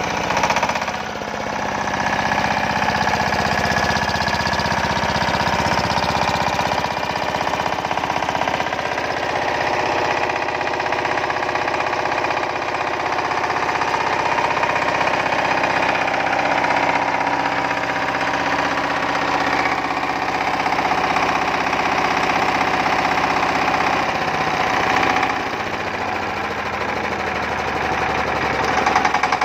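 Yanmar TS230H-di single-cylinder horizontal diesel engine running steadily with a rapid knocking beat. Near the end the running note dips slightly, then picks up again.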